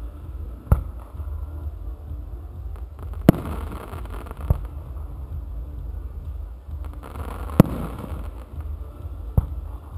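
Aerial firework shells going off: five sharp bangs a second or more apart, the loudest about three-quarters of the way through, over a steady low rumble.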